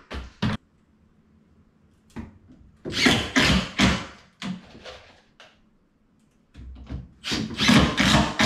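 Bursts of knocks and bangs on wood as parts of a wooden bed frame are fitted into place, with short quiet gaps between the bursts.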